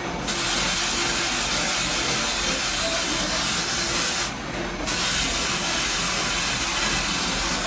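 Homemade paint sprayer spraying with a steady hiss that cuts out for about half a second around four and a half seconds in, then starts again.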